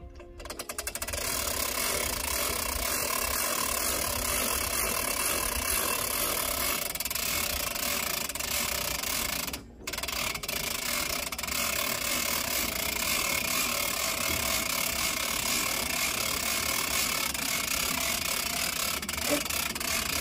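A motor starts about half a second in and then runs steadily, cutting out for a moment a little before halfway and picking up again.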